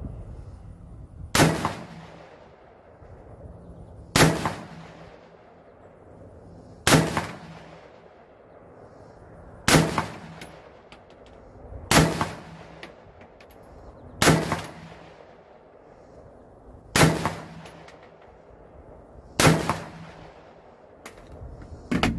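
Sig M400 AR-style rifle fired unsuppressed, nine single shots spaced a couple of seconds apart, each crack trailing off in a ringing echo. The muzzle carries a bare thread adapter where the flash hider was removed, with no suppressor fitted.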